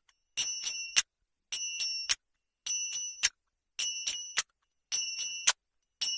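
Finger bell ringing in quick bursts of three bright, high-pitched dings, the bursts repeating about once a second.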